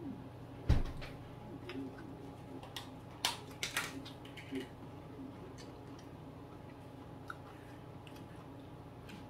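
Tableware knocking and clicking on a dinner table during a meal. A dull thump comes just under a second in, and a quick cluster of sharp clicks about three to four seconds in, over a faint steady low hum.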